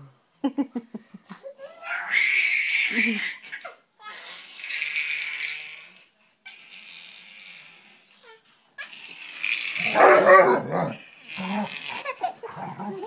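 A basset hound vocalising while people laugh. The loudest stretches come about two seconds in and again around ten seconds in.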